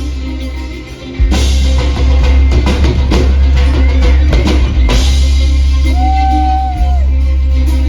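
Live folk-rock band playing loud, with a heavy bass line under it. The drum kit kicks in hard after a brief dip about a second in, and a single high note is held for about a second near the end.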